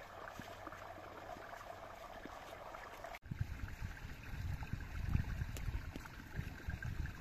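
Running water like a stream, a steady rushing. After an abrupt cut about three seconds in, a louder, uneven low rumble takes over.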